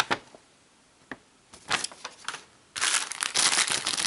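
Paper instruction sheet rustling in a few short bursts, then a thin plastic bag crinkling continuously from about three seconds in as it is handled.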